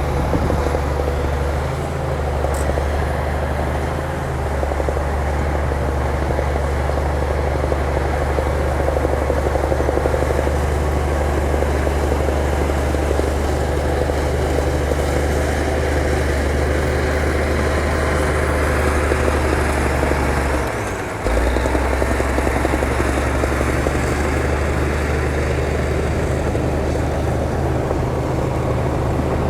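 Diesel engine of heavy earthmoving equipment running steadily with a low, even drone, briefly dipping about two-thirds of the way through.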